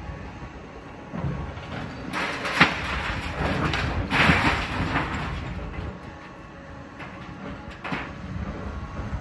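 Building demolition: a low, steady machinery rumble, with crashing and scraping debris from about two to five seconds in and one sharp bang near the start of it.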